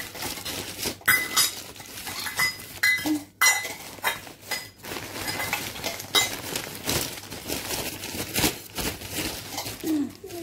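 Crumpled wrapping paper and plastic bags crinkling and rustling as hands move packed clothes around inside a cardboard parcel box. A few light clinks come in the first few seconds.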